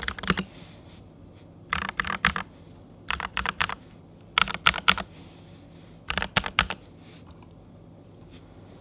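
TM680 mechanical keyboard with PBT keycaps being typed on in short bursts of rapid keystrokes, four quick runs of clicks, stopping about seven seconds in.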